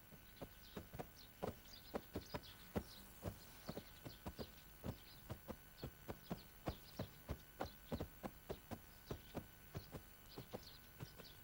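Footsteps of several people walking on stone paving, a faint, uneven run of hard knocks a few a second, with faint high chirps over them.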